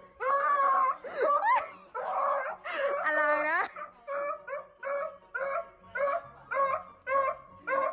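Beagle baying in a regular run of short, pitched barks, about two a second. Between about one and four seconds in, the barks give way to longer, drawn-out howls that bend and rise in pitch.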